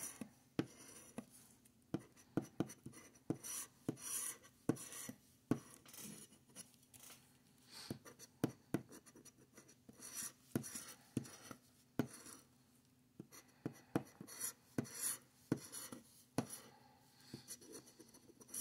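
A scraper tool scratching the coating off a paper scratch-off lottery ticket in many short, irregular strokes.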